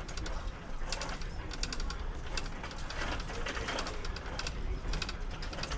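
Plastic shopping cart being pushed along a store floor, its wheels and basket rattling with quick, irregular clicks over a low rumble.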